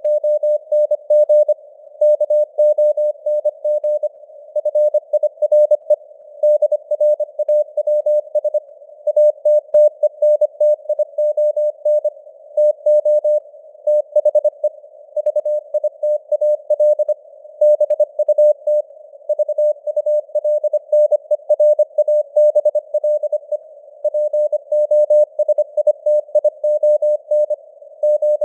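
Morse code (CW) sent at 25 words per minute as a single steady mid-pitched tone keyed in rapid dots and dashes. The tone sits in a narrow band of simulated radio receiver hiss.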